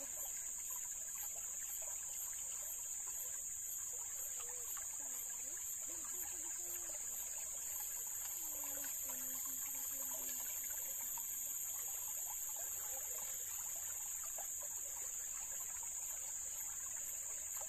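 Shallow creek water trickling steadily, with a constant high-pitched drone of insects over it.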